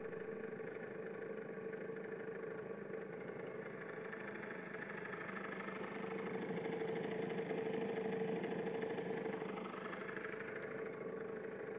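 Tohatsu 5 hp outboard motor running steadily at low throttle, pushing a small boat along. It grows a little louder about six seconds in and eases back near the end.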